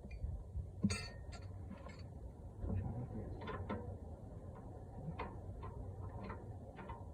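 Wrench clinking and ticking against metal brake fittings: a sharp clank about a second in, then light, irregular metallic ticks.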